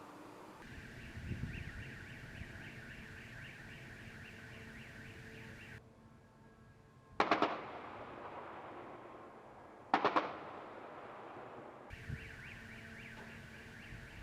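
Two loud explosion blasts about three seconds apart, each sharp at the start and booming away. Between them and around them a rapidly pulsing high electronic tone runs in the background, and a low rumble comes about a second in.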